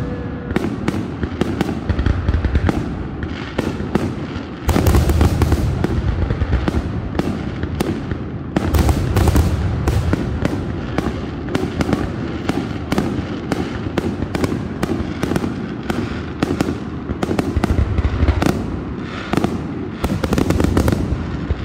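Aerial fireworks shells bursting in rapid succession: dozens of sharp bangs over a continuous low rumble. The heaviest volleys come about five and nine seconds in and again near the end.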